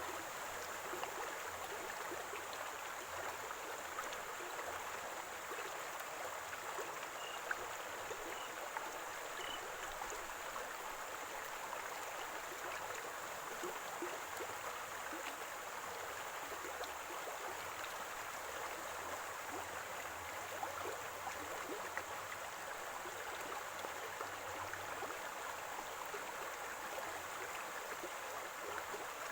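Running water of a shallow stream or spring, a steady gurgling and splashing.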